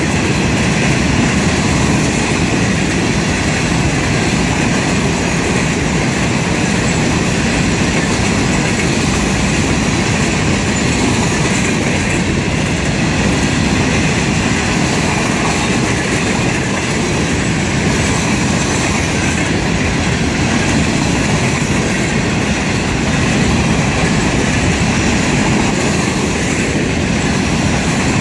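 A long string of Florida East Coast Railway freight cars, mostly open-top hoppers, rolling past close by: a steady, loud noise of steel wheels on the rails, with some clickety-clack.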